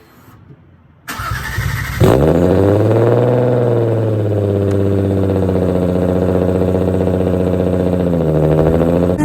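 Turbocharged Nissan RB25 straight-six starting through a 3-inch titanium exhaust. The starter cranks for about a second, the engine catches with a brief rise in revs, then settles into a steady, loud idle.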